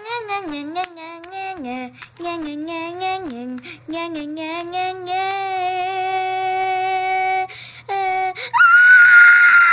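A child's voice making wordless sing-song sounds, short notes stepping up and down, then one long held note. Near the end it breaks into a loud, high-pitched scream.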